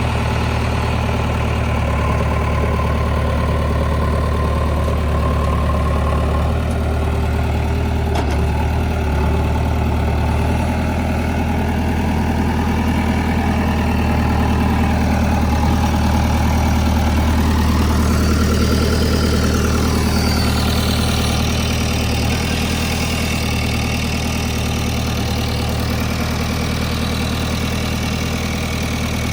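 Diesel engine of a JCB 3DX Eco Xcellence backhoe loader running steadily, growing a little louder around the middle.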